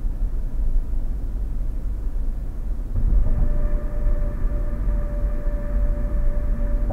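Car road and tyre noise at highway speed, heard from inside the cabin: a steady low rumble. About three seconds in, a steady humming whine joins it and holds on.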